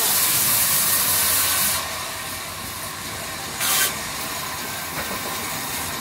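Sawmill band saw cutting a wooden plank: a steady high hiss that drops in level a little under two seconds in, with a brief louder hiss just before four seconds in.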